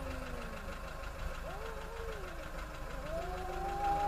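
Two cats yowling at each other in a standoff: long, drawn-out howls that slowly rise and fall in pitch, one after another, with two overlapping near the end, over a steady low rumble.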